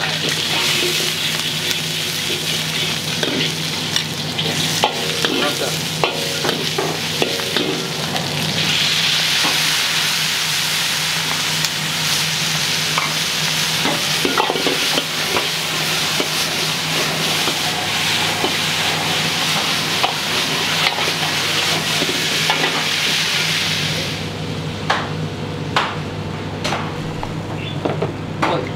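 Wok stir-frying over a high gas flame: a metal ladle scraping and clanking against the wok while garlic, chilies and deep-fried lobster pieces sizzle. The sizzle grows louder about a third of the way in and dies away near the end, leaving a few sharp clinks of the ladle.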